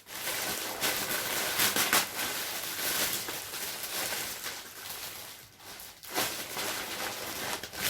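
Plastic snack packaging crinkling and rustling as it is handled and opened.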